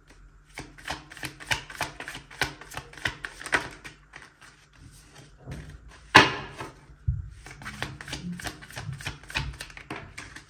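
A deck of tarot cards being shuffled by hand: rapid runs of crisp clicks as the cards riffle, with one louder slap of the cards about six seconds in.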